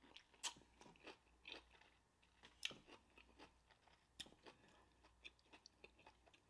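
Close-miked chewing of a pickled pepperoncini: faint, scattered wet mouth clicks and small crunches, the sharpest about half a second, two and a half and four seconds in.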